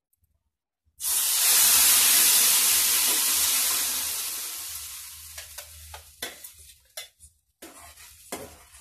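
Blended masoor dal poured into hot ghee in a wok, sizzling and spattering loudly at once about a second in, then dying away over several seconds. A spoon stirs and scrapes in the pan near the end, with a few light clicks.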